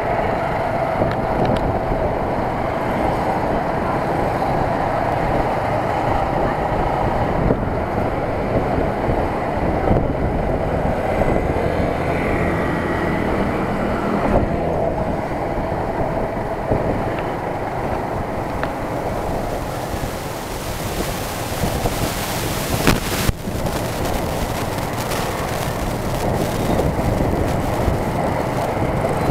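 Riding in a motorbike-drawn tuk-tuk carriage: the motorbike's engine runs steadily under road and wind noise, with street traffic around. A hiss grows in the second half, and a single sharp knock comes about three-quarters of the way through.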